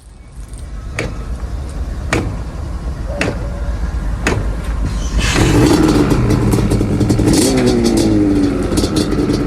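Yamaha Banshee 350 two-stroke twin engine running and being revved, with sharp cracks about once a second over the first few seconds, then louder from about five seconds in.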